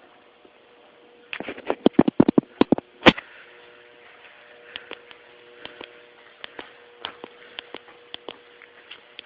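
Airsoft guns firing: a rapid burst of sharp shots starting about a second in and lasting under two seconds, then scattered quieter single shots, over a steady hum.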